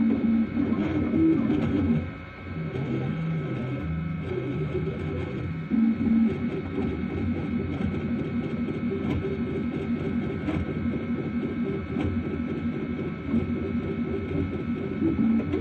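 3D printer running, its stepper motors whining at low pitches that jump to a new note every second or so as the moves change speed, with faint steady high tones underneath.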